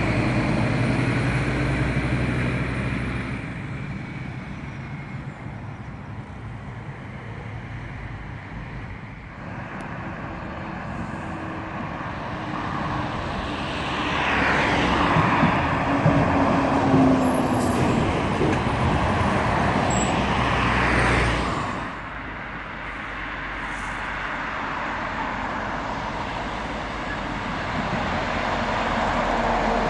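Heavy diesel lorries passing one by one on a main road: a Scania refuse truck going by at the start, a Volvo livestock lorry passing loudest in the middle with a slowly falling engine note and tyre noise, cutting off suddenly, then a Scania articulated lorry approaching near the end.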